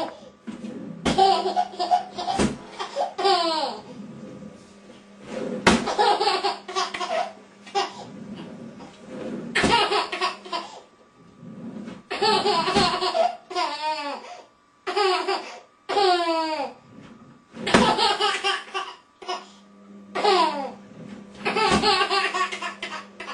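A toddler laughing in repeated loud bursts, with several sharp knocks of a wooden drawer being banged shut among the laughs.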